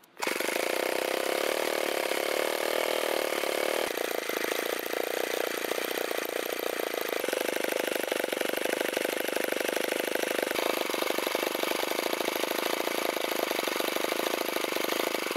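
Old Mitsubishi hopper-cooled single-cylinder stationary engine running steadily at idle, with fast, even firing pulses. It starts abruptly just after the opening.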